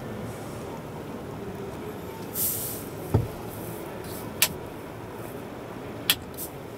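Steady background noise, broken by a short hiss about two and a half seconds in, a low thump just after, and two sharp clicks later on.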